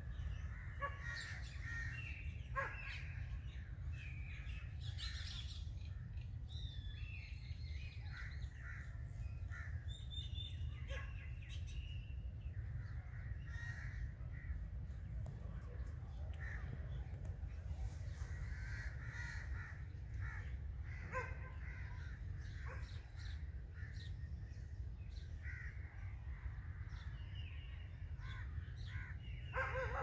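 Several birds calling on and off, short calls and chirps, with a steady low rumble underneath.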